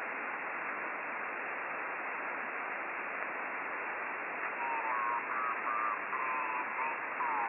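Icom IC-9700 receiving the RS-44 satellite downlink in single-sideband: steady receiver hiss, with a faint sideband voice from an amateur station coming up through the noise about four and a half seconds in.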